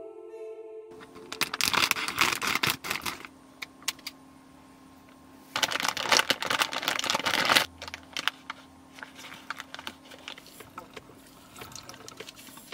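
Clear plastic bag crinkling loudly in two stretches as hands press and handle food inside it, then quieter rustling and clicking as the food is handled, over a faint steady hum. Soft music fades out in the first second.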